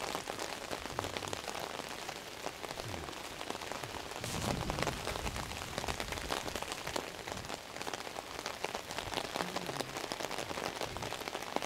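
Heavy rain falling, a dense pattering of drops close by, with a brief deeper swell about four seconds in.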